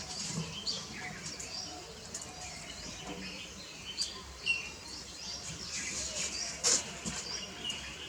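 Purple sunbird chirping: many short, high, quick notes scattered throughout, with one sharp click late on.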